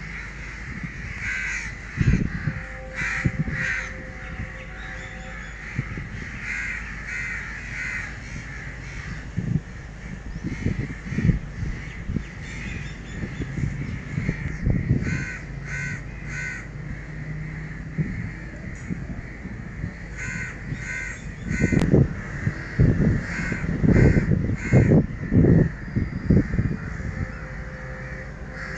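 A flock of house crows cawing, short calls coming in clusters of several at a time and overlapping through the whole stretch. Low thuds come and go under the calls and are loudest in the second half.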